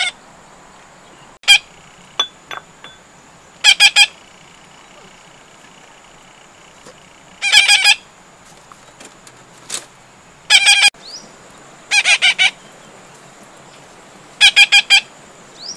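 Short, high-pitched animal calls in quick groups of two or three notes, repeating every three to four seconds.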